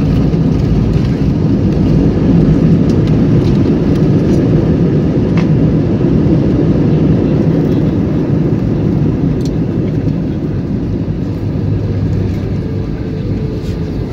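Airliner cabin noise during the landing roll: a loud, steady low rumble from the jet and the runway, easing off slowly toward the end as the plane slows.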